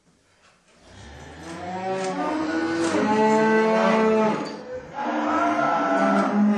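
Cow mooing twice: a long moo that slides up in pitch and then holds, followed about half a second later by a second, shorter moo.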